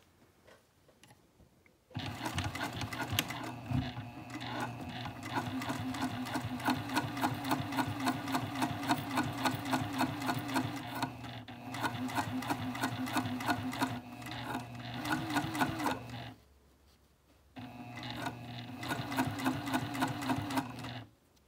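Juki sewing machine stitching zipper tape onto a fabric panel. It starts about two seconds in and runs steadily. It stops briefly near the end, then runs again and stops just before the end.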